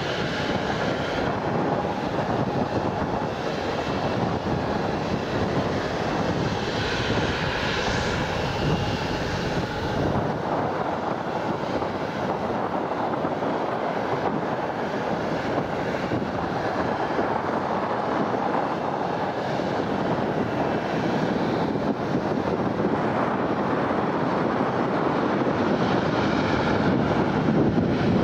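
Airbus A330 airliner's jet engines running at high thrust as it departs: a steady rush with a whining engine tone, growing a little louder near the end.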